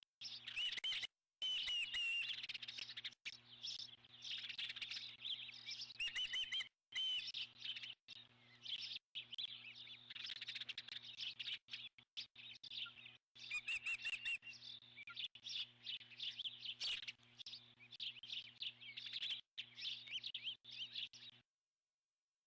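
Bald eagles at the nest calling in many quick, high, wavering chirps and chitters, over a steady low electrical hum. The sound cuts off suddenly near the end.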